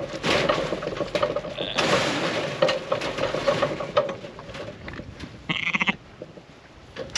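A sheep bleats once, briefly, about five and a half seconds in, after several seconds of rustling and knocking noise from the pen.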